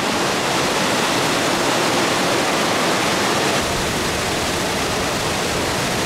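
Steady rushing of a mountain river in the gorge, a dense even hiss, with a deeper rumble joining a little past halfway.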